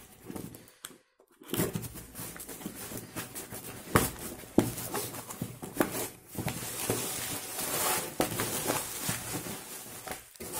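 Cardboard shipping box being torn open by hand: tape and flaps ripping, with two sharp snaps about four seconds in. Toward the end, plastic bubble wrap rustles and crinkles as the packed item is pulled out.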